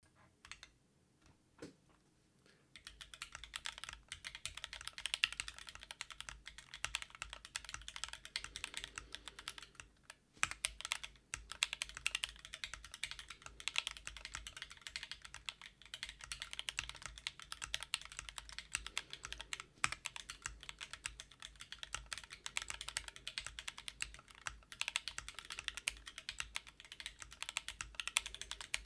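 Typing on an RGBKB Sol v1 split mechanical keyboard in a CNC-machined Corian case, with lubed Tealios linear switches on 63.5 g springs and GMK keycaps. A couple of single key presses come first, then a fast, continuous run of keystrokes starts about three seconds in, with a brief pause near ten seconds.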